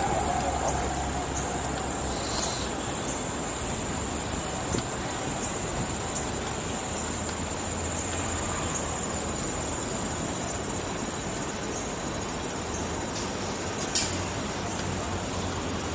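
Steady city background noise heard while riding a bicycle along a park path: a low traffic rumble under an even hiss, with a thin, steady high whine over it. A single faint click comes near the end.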